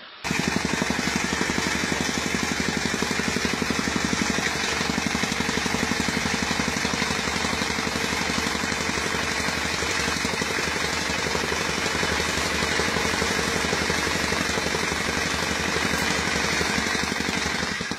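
Petrol tamping rammer (jumping-jack compactor) running at full speed: a rapid, steady pounding of engine and ramming foot.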